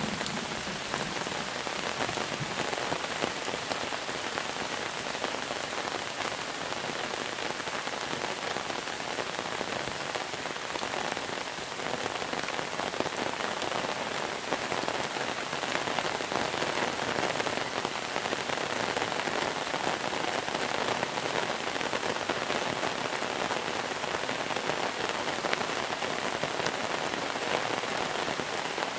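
Steady heavy monsoon rain falling, a dense hiss dotted with the hits of individual drops, swelling slightly about halfway through.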